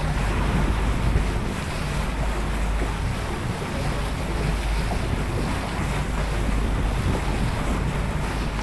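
Wind buffeting the microphone over a steady rush of water along the hull of a sailing catamaran under way.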